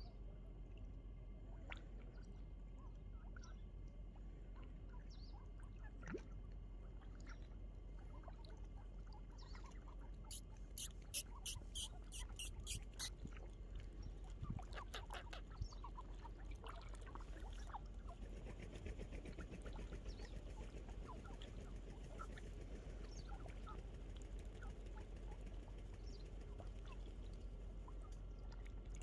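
Mallard ducks dabbling and feeding in a shallow rock pool: faint splashing and small clicks of bills working the water. About ten seconds in comes a run of sharp clicks, roughly four a second, for a couple of seconds.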